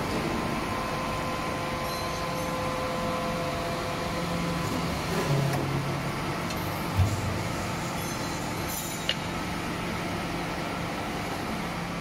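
Hydraulic wire rope swaging press running with a steady mechanical hum. A single thud comes about seven seconds in, and a sharp click about two seconds later.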